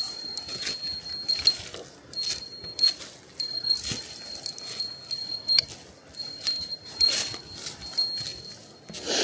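A small bell jingling on a fixed high pitch, struck afresh with each step, over the footsteps of a walker in chain spikes climbing at about two steps a second.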